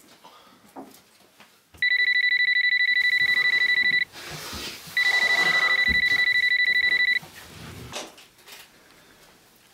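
A telephone ringing with a fast electronic warble: two rings of about two seconds each, a second apart.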